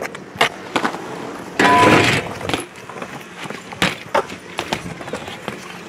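BMX bike rolling over brick paving and riding onto a concrete skatepark ledge, with scattered clicks, a louder scraping rush about two seconds in and a sharp knock about four seconds in.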